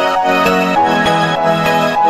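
Instrumental background music, a melody moving note by note over a steady accompaniment.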